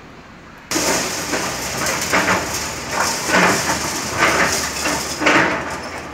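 Hyundai tracked excavator demolishing a concrete building: loud crashing and scraping of concrete rubble and rebar, hit after hit, over the machine's running noise. It starts abruptly about a second in, after quieter street sound.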